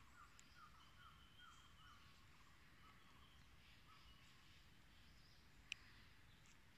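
Near silence with faint birdsong: a run of short, falling notes, about two to three a second, that dies away about halfway through, over a thin high tone. A single faint click comes near the end.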